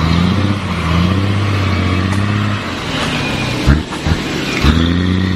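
Truck engine sound revving up, then running steadily at a low pitch. It revs up again near the end, with a few sharp knocks in between.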